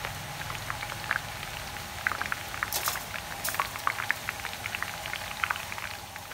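Hot oil sizzling and crackling in a wide steel frying pan as food deep-fries: a steady hiss full of quick, sharp pops, with a few louder crackles a little before the middle.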